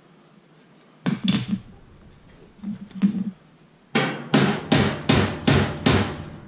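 Claw hammer striking the thick steel tabs of a ball-joint link held in a clamp, trying to bend them over. A few lighter taps come first, then six hard, ringing blows in quick succession, about two and a half a second.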